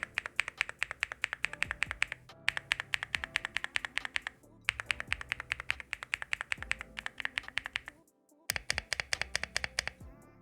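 Fast typing on a Leobog Hi75 mechanical keyboard fitted with Akko V3 Cream Blue Pro switches, a polycarbonate plate and GeekSocial keycaps: a quick, steady run of key clacks at about eight to ten a second. The run breaks briefly about two and a half and four and a half seconds in, with a half-second stop about eight seconds in. Quiet background music plays underneath.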